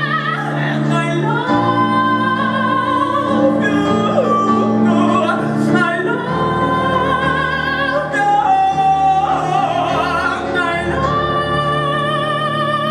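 Singing in long held notes with a wide vibrato over sustained low accompaniment, from a ballad performed in a classical-leaning vocal style.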